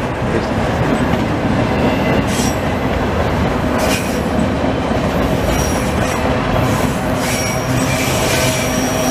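CN autorack freight cars rolling past close by: a steady, loud rumble of steel wheels on rail, with thin high-pitched wheel squeals coming and going.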